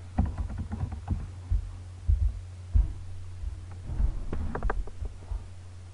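Keyboard typing and mouse clicks picked up as irregular soft low thumps and short clicks, over a steady low electrical hum.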